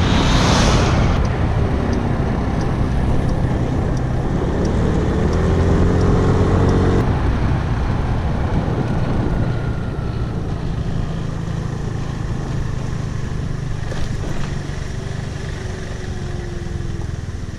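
Motor vehicle engine running while driving, its pitch climbing until about seven seconds in and then dropping, as when accelerating through a gear change, under steady road and wind noise.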